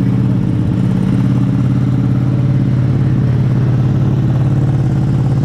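An engine running at a constant speed, a steady low drone that holds one pitch without revving.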